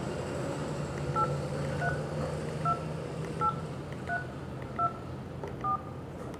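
Keypad tones of an EKSX FX182 button feature phone as a number is dialled: seven short two-tone beeps, roughly one every 0.7 s.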